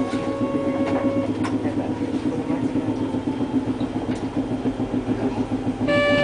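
Hankai Tramway streetcar standing with its on-board machinery running in a steady, fast-pulsing hum. A short horn toot sounds near the end.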